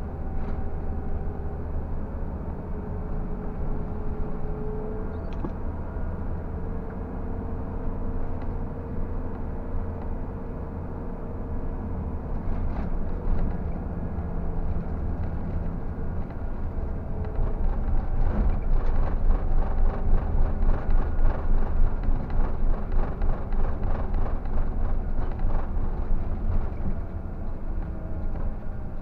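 Scania K124 coach's straight-six diesel engine running at cruising speed, heard from the driver's seat together with road and cabin noise. About two-thirds of the way through it turns louder, with a fast rattling for several seconds before easing again.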